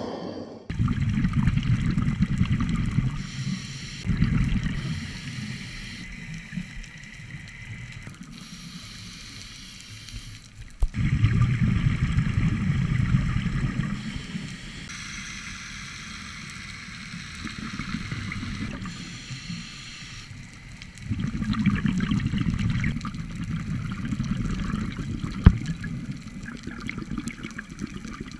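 Underwater scuba breathing: bubbles from a diver's regulator exhalations rumbling in bursts of a few seconds each, with quieter gaps between breaths.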